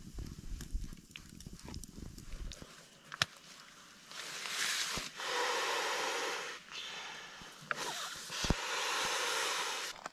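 Long breaths blown by mouth into the valve of an inflatable sleeping pad, about four in a row, each a steady hiss of a second or two, as the pad is inflated.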